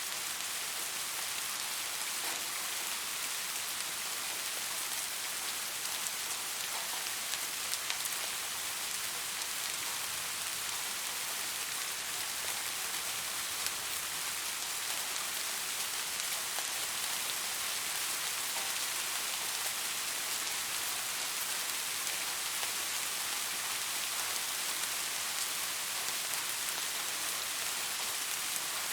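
Steady rain falling, a dense even hiss with many fine drop ticks on a surface.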